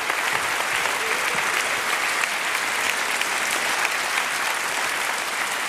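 Studio audience applauding steadily: a dense patter of many hands clapping that eases off slightly near the end.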